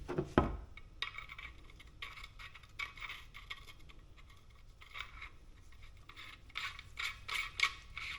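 Small metal fuel-rail fittings being handled and worked by hand: a knock about half a second in, then repeated short scraping and rubbing.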